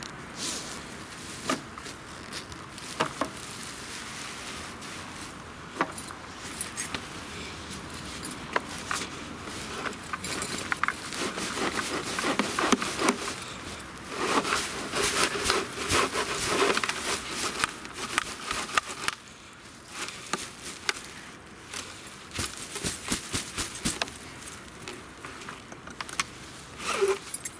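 Dry chestnut leaves rustling and crackling as they are shaken out of a blower-vacuum's fabric collection bag into a plastic compost bin. Fabric rustling and sharp little clicks run through it. It is busiest around the middle.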